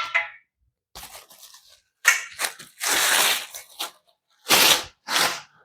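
Cardboard and styrofoam packing being pulled apart and torn while bed-frame parts are taken out of the box, in several rough, scraping rustles: one about a second long near the middle and two short ones near the end.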